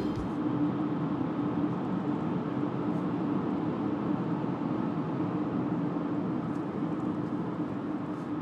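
Steady road and engine noise heard inside a car cruising at freeway speed, an even rush with a faint steady hum running under it.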